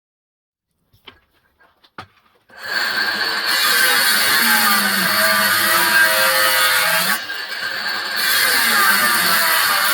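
Power drill running in two long runs, its pitch wavering, with a brief break about seven seconds in. A couple of light clicks come before it starts.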